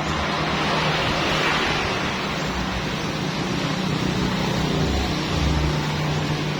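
A motor running steadily with a low hum, under a rushing hiss that swells about a second in.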